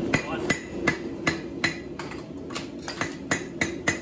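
Hand-hammer blows on a hot railway spike held in tongs on the anvil, about two to three strikes a second with a short pause near the middle, each blow giving a sharp metallic ring. A steady low hum runs underneath.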